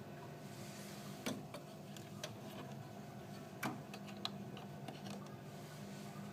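Ideal Isar HE30 gas boiler running with a steady mechanical hum, broken by a handful of sharp, irregular clicks. This is the boiler with the fault where it lights but does not stay lit.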